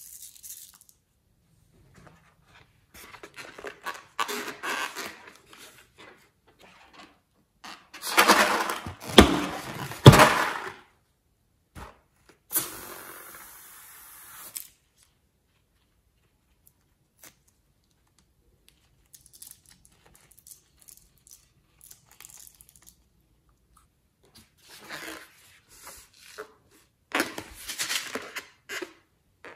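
Intermittent crackly, rustling handling noises from slime and rubber balloons being worked by hand, in short spells with quiet gaps between. The loudest spell, with sharp clicks, comes about a third of the way in, followed by a brief hiss.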